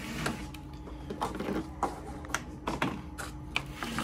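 Aluminium foil crinkling and steel food containers clinking on a plastic tray as a meal tray is uncovered, a string of irregular sharp clicks and rustles.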